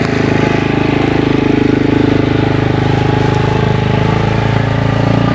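A vehicle engine running steadily at an even speed, with no revving.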